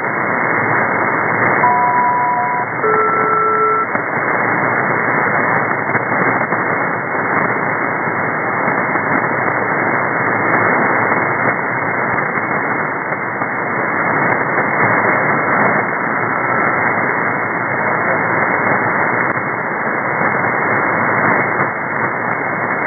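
Steady shortwave static and hiss from an HF receiver on an aeronautical upper-sideband channel, with no voice traffic. About two seconds in, two short pairs of steady two-note tones sound one after the other, about a second each: a SELCAL selective-calling signal to an aircraft.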